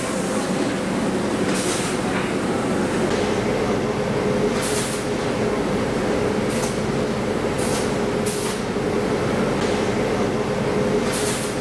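Screen-print shop machinery running with a steady mechanical hum, broken about half a dozen times by short hisses.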